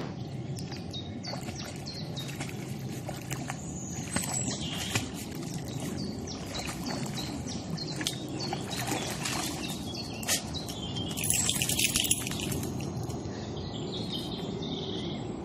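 Small birds chirping repeatedly over a soft, steady wash of water, while a dog swims and wades out at the canal edge; a brief burst of splashing about eleven seconds in.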